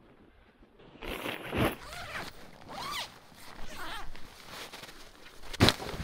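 A pop-up ice-fishing shelter and its bag being unzipped and pulled open. From about a second in there are several zipper pulls and nylon fabric rustling, and one sharp snap near the end.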